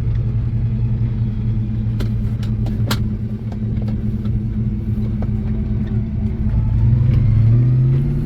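Holden 308 V8 running steadily, its pitch and level rising near the end as it picks up revs. A few sharp clicks come about two and three seconds in.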